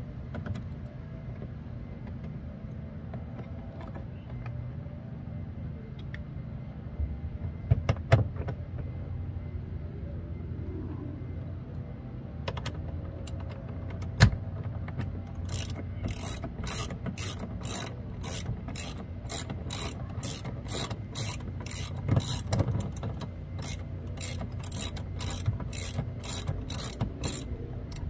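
Hand ratchet with a 10 mm socket working the screws of a car door panel, its pawl clicking in quick, even strokes, about two to three a second, through the second half. A couple of single sharp knocks come before that.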